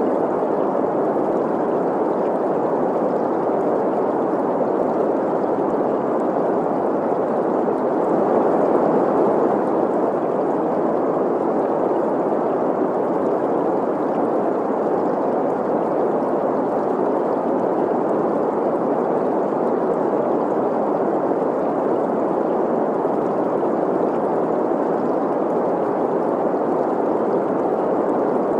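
Steady green noise, an even hiss centred in the middle of the range with little deep bass or treble, blended with the rushing flow of a stream. It swells slightly about a third of the way in.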